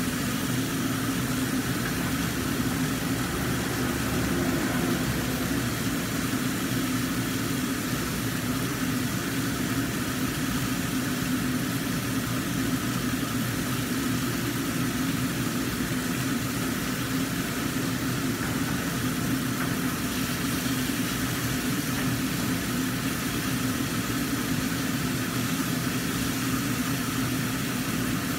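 Kitchen range hood exhaust fan running with a steady, even hum.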